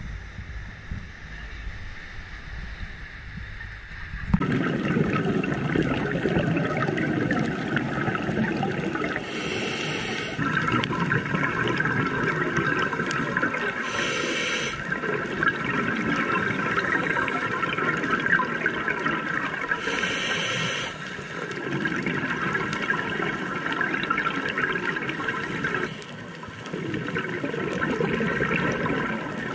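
Scuba diver's exhaled air bubbling and gurgling underwater, getting much louder about four seconds in, with three stronger bursts of bubbles spaced several seconds apart.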